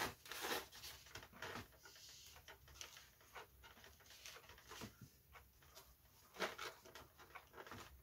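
Faint, scattered clicks and rustles of small lightweight balsa model-aircraft parts being handled and fitted together, with a slightly louder handful of clicks about six and a half seconds in.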